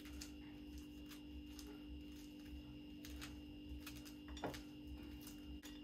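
Faint, scattered clicks of maize kernels being rubbed off the cob by hand and dropping into a glass bowl, over a steady low hum.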